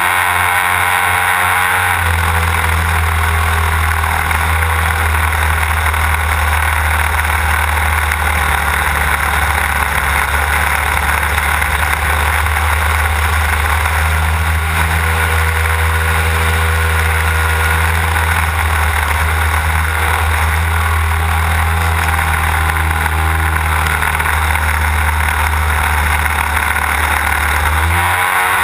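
Desert Aircraft DA-150 twin-cylinder two-stroke petrol engine of a large-scale model aerobatic plane, heard close-up from on board in flight. Its pitch drops about two seconds in to a steady drone as the throttle comes back, then rises near the end as the throttle opens again.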